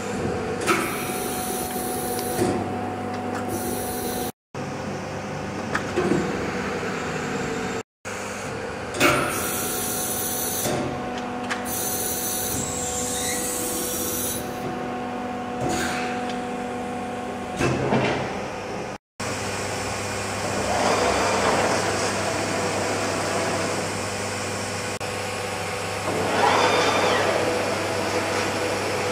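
Edwards Pearson PR6 CNC hydraulic press brake running, with a steady hum carrying several constant tones. A few sharp clunks come through, and two longer swells of rushing noise rise and fall in the second half.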